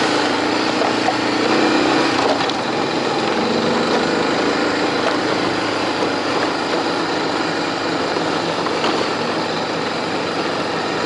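Motorbike engine running steadily, under a loud, rough rushing noise.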